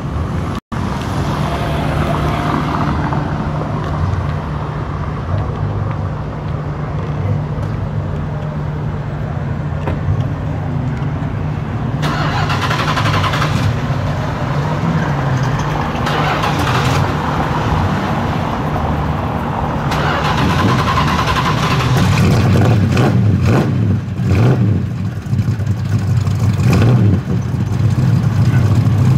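1969 Dodge Charger's V8 idling steadily through its exhaust. Over the last several seconds it gets louder and less even.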